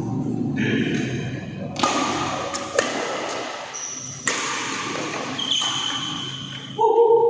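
Badminton rally in a hall: a racket hits the shuttlecock three times, sharp and echoing, with thin high squeaks between the hits and a loud held pitched sound near the end.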